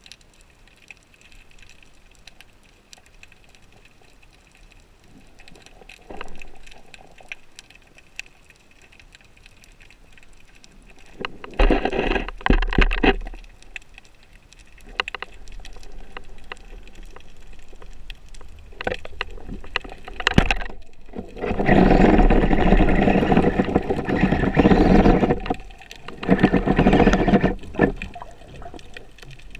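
Underwater sound through a camera's waterproof housing: a low hiss with scattered faint clicks, then two spells of loud rushing, gurgling water noise, a short one about twelve seconds in and a longer one from about twenty-one to twenty-seven seconds, as the diver moves through the water.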